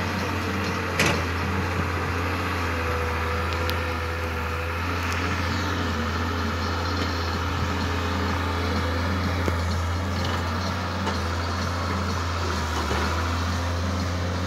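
Caterpillar E120 hydraulic excavator's diesel engine running steadily as it digs and swings to load sand, with a sharp knock about a second in.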